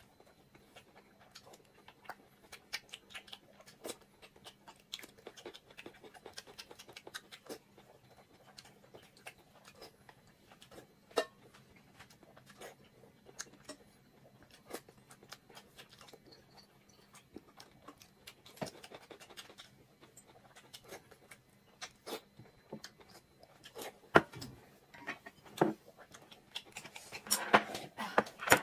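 Quiet eating sounds: scattered small clicks and taps of chopsticks against a plate and bowl over a faint low hum, turning into louder, busier clatter of dishes and chopsticks in the last few seconds.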